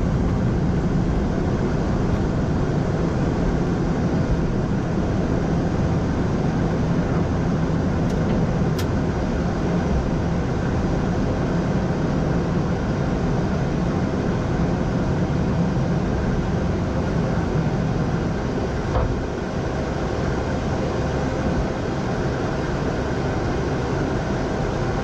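Steady rushing flight-deck noise of an Airbus A220-100 in its climb: airflow and engine noise heard from the cockpit, dipping slightly in level near the end.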